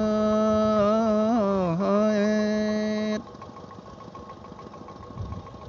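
A singer holding one long sung note with small bends in pitch, which breaks off about three seconds in, followed by a quieter stretch of faint background noise.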